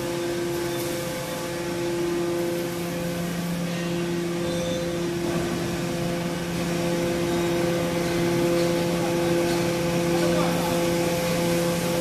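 Hydraulic power unit of a scrap metal baler running steadily: an even droning hum with a few held tones.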